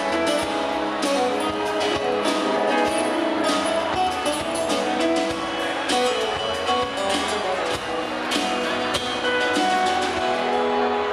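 Live band music led by acoustic guitar, with a steady beat.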